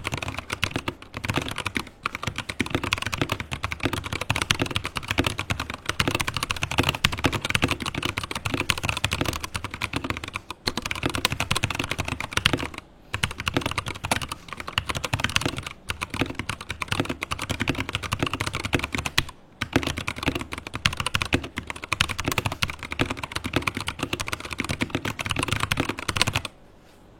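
Typing test on a modded Rexus Daxa M84 mechanical keyboard with Kailh Box Crystal Pro switches, EVA foam and Press Play keycaps: a dense, fast stream of keystrokes with a few short pauses, stopping just before the end. The sound is deep and round, from the EVA foam and switch upgrade.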